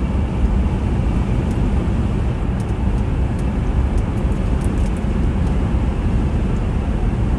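Steady road and engine noise inside a moving car's cabin, deep and even throughout.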